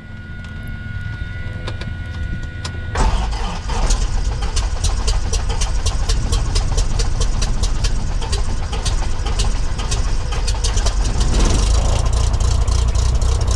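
Cessna 172's engine starting: a few seconds of the starter cranking, then the engine catches suddenly about three seconds in and settles into steady running with the propeller turning.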